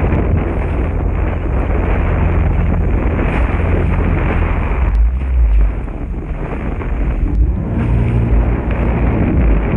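Personal watercraft under way on choppy sea water: heavy wind noise on the microphone over the engine's steady hum and the hull splashing through the chop, easing briefly about six seconds in.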